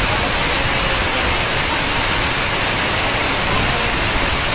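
Heavy rain pouring down, a steady, dense hiss.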